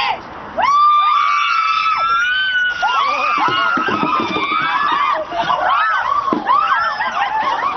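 A group of women shrieking and screaming together, many voices at once, starting about half a second in: their reaction to the shock of ice-cold water poured over them from buckets.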